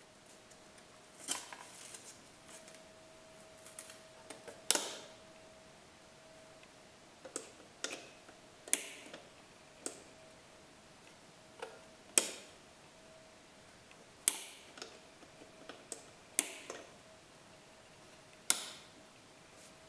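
Karlik two-way (staircase) light switches clicking as they are toggled: about a dozen sharp single clicks at uneven intervals. The clicks switch a lamp on and off in a test of the two-way circuit.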